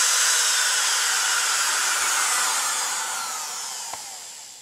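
Makita RT701C trim router's brushed motor running at full speed with a high-pitched whine, then slowing down, its pitch falling and the sound fading as it spins down.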